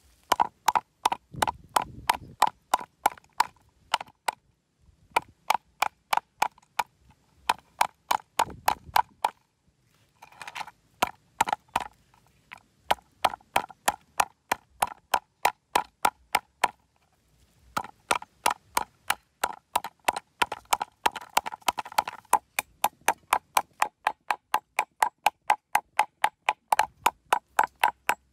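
A cleaver chopping on a wooden chopping board: sharp, even knocks, about three a second, broken by a few short pauses.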